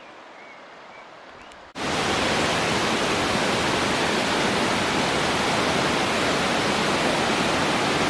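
Quiet outdoor ambience, then, a little under two seconds in, a sudden switch to the loud, steady rush of a waterfall.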